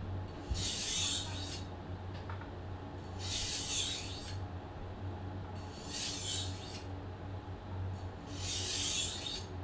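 Gyuto chef's knife blade scraping across a whetstone in four slow, even strokes, about one every two and a half seconds: light-pressure, heel-to-tip passes gliding the edge along the stone to remove the burr.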